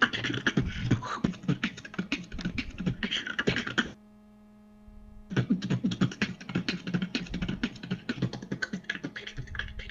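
Human beatboxing: fast, dense percussive mouth sounds, breaking off for about a second and a half partway through, then starting again.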